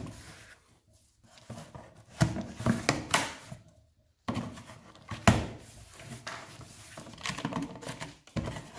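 Cardboard box flaps being pulled open and handled, with a few short knocks, then packing paper rustling as it is lifted out of the box.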